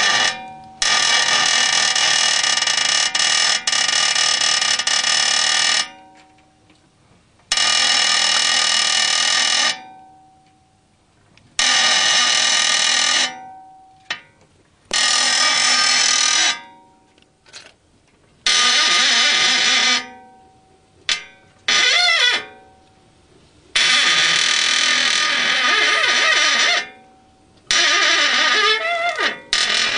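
High, piercing squeak from a Honda F20B6 engine, full of overtones, coming in about eight long spells of one to five seconds with short silences between; a couple of spells waver in pitch.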